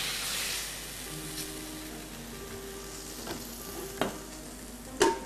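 Hot cooking pan sizzling with a hiss that dies away over the first second, followed by light clicks of kitchen utensils and a sharper metallic knock near the end.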